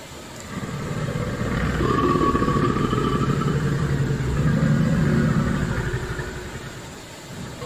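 Crocodile growl sound effect: a deep, rough, pulsing growl that swells twice and fades near the end.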